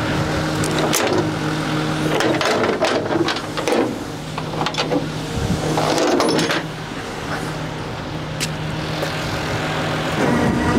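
Flatbed tow truck's engine running steadily to drive the winch, with scattered knocks and scrapes as a broken-down car is pulled up onto the bed.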